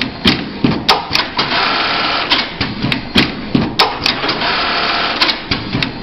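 Automatic velcro feeding and attaching sewing machine running: a steady mechanical whirr broken by sharp clacks at uneven intervals, about a dozen in all.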